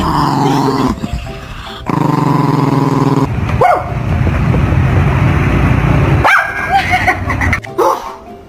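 A dog barking and growling, with a few short yelps rising and falling in pitch.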